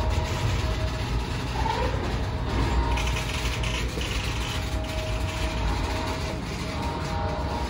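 Motorized vehicle display turntable running with a steady mechanical hum, slowly rotating a full-size van.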